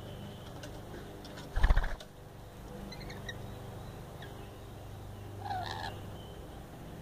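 Rainbow lorikeet wings flapping in a brief loud flutter about a second and a half in, as a second bird flies in and lands on the log. A few faint chirps follow, then a short bird call near the end, over a steady low hum.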